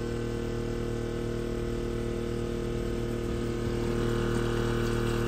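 Steady hum with a buzz in it from a boat's hot water heater in the engine room, the noise that had seemed like an engine turning over and vibrating the boat. It is the sign of a failing heater that has to be replaced.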